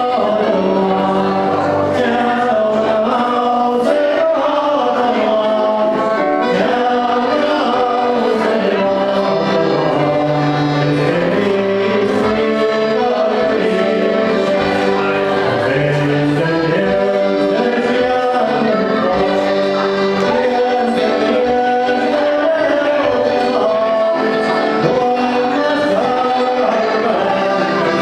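Music with several voices singing together in sustained, held notes, without a beat.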